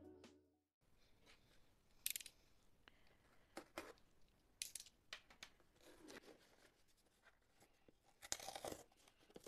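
A cardboard mailer box being handled and turned over on a table by hand: a few scattered, quiet scrapes and rubs of cardboard, the loudest cluster near the end.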